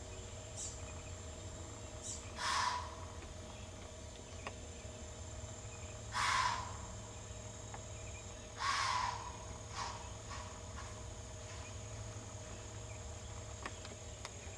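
White-tailed doe blowing: three sharp hissing snorts a few seconds apart, then fainter ones, the alarm snort of a deer that has spotted an intruder. Insects trill steadily behind.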